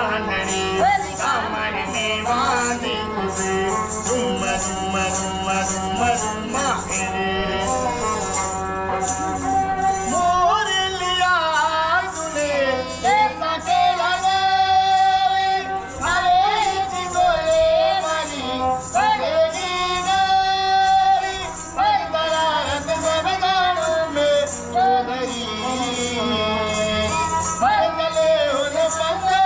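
Music: a voice singing a wavering, ornamented melody over a steady low drone.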